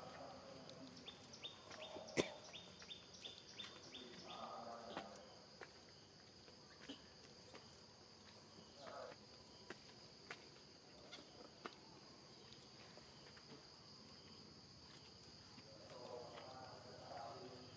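Faint outdoor ambience: a steady high insect drone, with a run of light ticks in the first few seconds, one sharper click about two seconds in, and a few brief faint calls now and then.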